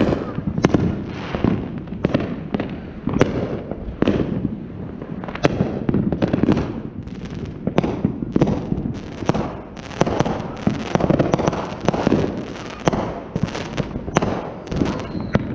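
Fireworks going off all around: a dense, continuous barrage of bangs and crackling, several a second, with a few louder reports standing out.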